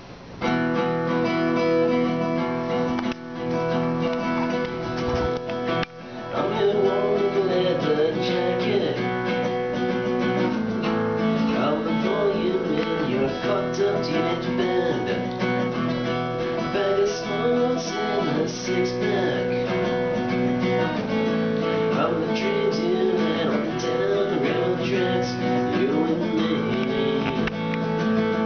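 Acoustic guitar strummed steadily in chords, with two brief breaks in the first six seconds before the playing settles in.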